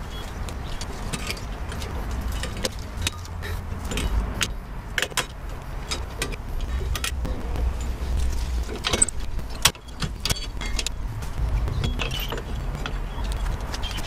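Irregular metallic clicks and clinks of needle-nose pliers working the springs and clips of a drum brake's shoe assembly, over a steady low rumble.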